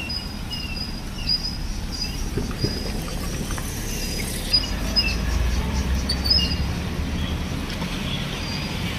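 Small birds chirping in short, repeated high notes over the steady low rumble of city traffic, which swells around the middle. A few brief sharp knocks stand out near the middle.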